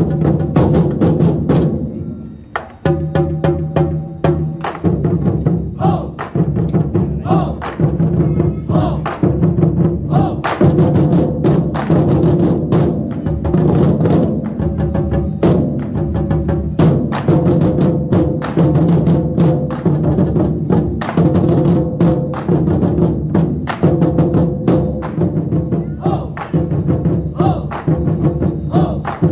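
Lion dance drums, many struck together by a troupe in a fast, driving unison rhythm. The drumming dies down briefly about two seconds in, then the whole ensemble comes back in together.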